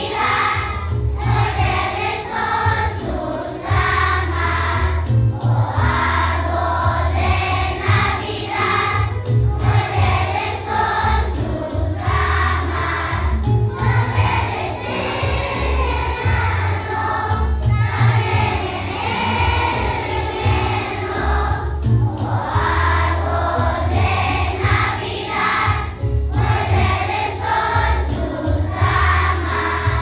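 A large children's choir singing a Christmas song over an instrumental accompaniment with a steady low bass line.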